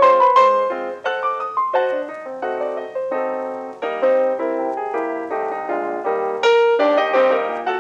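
Background piano music: quick struck notes and chords.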